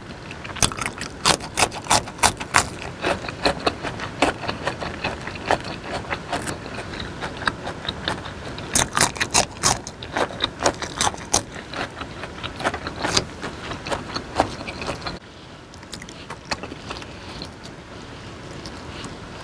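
Close-miked chewing of a mouthful dipped in chili sauce: a fast, irregular run of sharp, wet mouth clicks and smacks, which thins out and gets quieter about fifteen seconds in.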